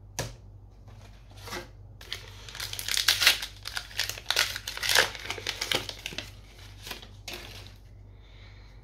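Crinkling of a foil trading-card booster pack wrapper being handled, a dense crackle for about four seconds that thins out near the end.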